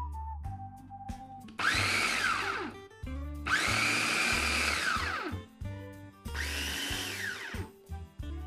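Mitochiba electric food chopper grinding raw peeled shrimp in three short pulses. Each pulse is a motor whine that climbs as the blade spins up and drops away as it runs down. Background music with a steady beat plays throughout.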